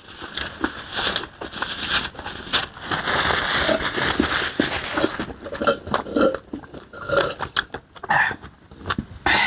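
Close-up mouth sounds of eating starch fufu and banga soup: wet chewing and lip smacks, with a quick run of sharp clicks and a denser noisy stretch about three to five seconds in.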